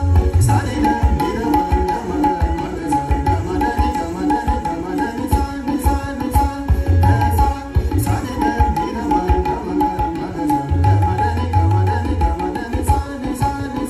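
Indian classical music accompanying a kathak dance: tabla playing a brisk rhythm under steady held melodic notes, amplified.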